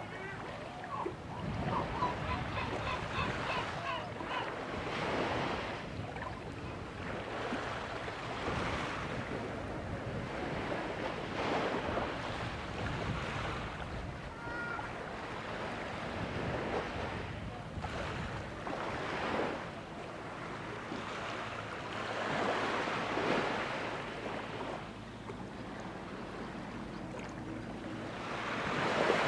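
Small waves washing onto a sandy beach, surging gently every few seconds, with wind buffeting the microphone.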